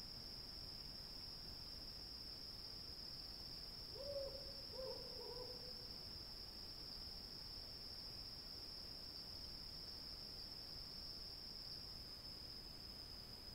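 Steady high-pitched chirring of crickets, with an owl hooting twice, about four and five seconds in.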